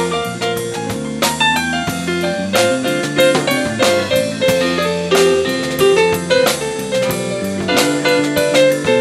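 Jazz-funk fusion band playing live: keyboard chords held over a drum kit groove.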